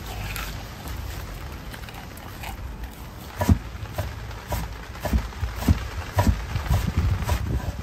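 Kitchen knife slicing green onion on a wooden cutting board, sharp cuts about two a second starting about three seconds in, over a low steady hiss.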